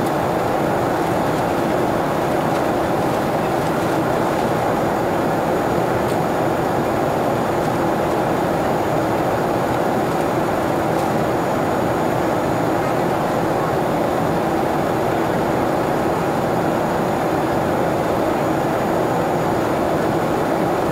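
Steady cabin noise of a jet airliner in flight, heard from inside the cabin: the engines' drone and rushing airflow, with a faint steady high whine.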